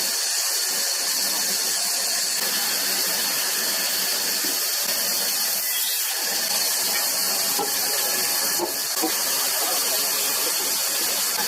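Steady loud hiss, strongest in the high range, with faint scattered small knocks underneath.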